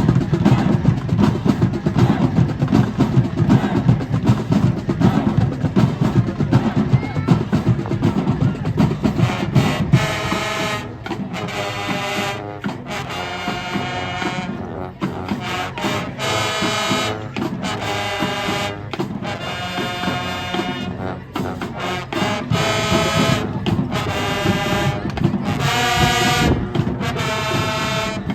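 High school marching band playing, with drums and low brass for about the first ten seconds, then the brass section playing a series of loud held chords separated by short breaks.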